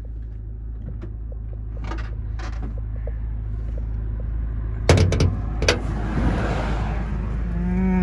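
A car's hood latch releasing and the hood being opened: a sharp metallic clunk about five seconds in, with a second click just after, over a steady low rumble. A rush of noise swells and fades after it.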